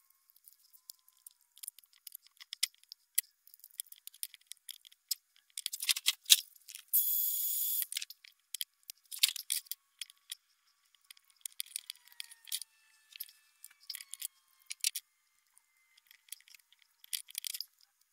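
Faint, scattered clicks and taps of small plastic parts as the cordless air pump's rebuilt battery pack and housing are handled and fitted together, with a brief hiss of about a second roughly seven seconds in.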